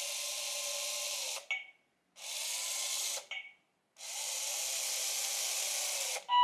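Bee-Bot floor robot's small electric motor and gears whirring as it drives forward in three separate moves with short pauses between them, a brief blip ending each of the first two. A loud beeping starts right at the end.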